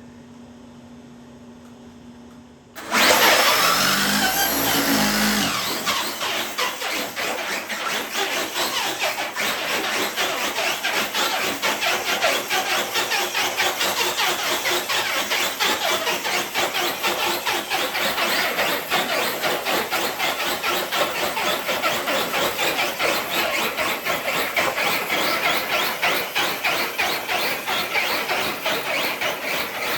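RC truck starting off suddenly about three seconds in, its motor spinning up with a rising whine, then running hard and steadily under load while pulling a weighted sled.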